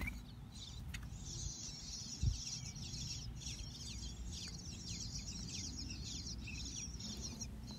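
Bluebird nestlings begging inside a nest box as a parent arrives at the entrance: a dense chorus of rapid, high, falling chirps. A single dull low thump sounds about two seconds in.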